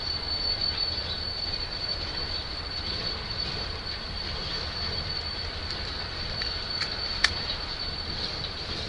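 Freight train boxcars rolling past with a steady, high-pitched wheel squeal over the rumble of the wheels on the rails. A single sharp clank comes about seven seconds in.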